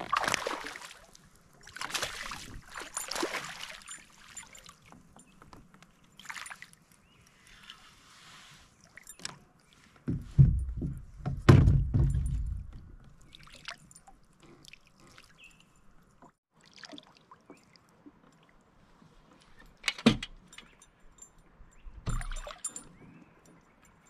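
A hooked smallmouth bass splashing at the surface beside a kayak, three splashes in the first few seconds. About ten seconds in comes the loudest part: water sloshing and heavy knocks against the kayak as the fish is lifted aboard in a landing net, then a few sharp knocks later on.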